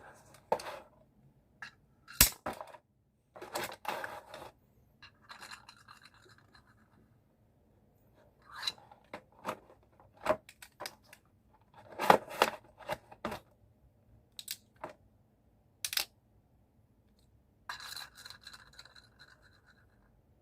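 Hands opening a toy's packaging: crinkling and tearing plastic and cardboard, with several sharp clicks of small hard pieces knocking together.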